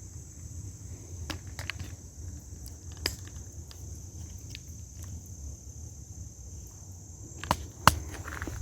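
Steady high-pitched trilling of an insect chorus, crickets or similar, with scattered sharp clicks, the loudest two near the end.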